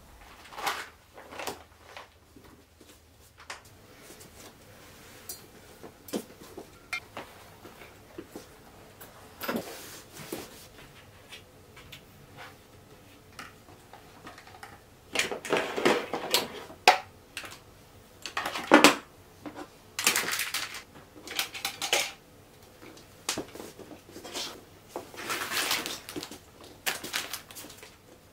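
Small desk items and plastic organiser boxes being picked up, sorted and set down on a wooden floor: scattered clicks, knocks and short rustles, sparse at first and busier in the second half.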